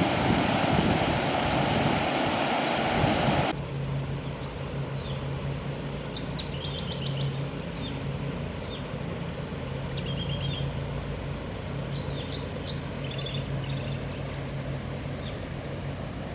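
Loud, even rushing noise that cuts off abruptly about three and a half seconds in. Then comes a quieter outdoor scene: small birds chirping in short high calls over a steady low hum.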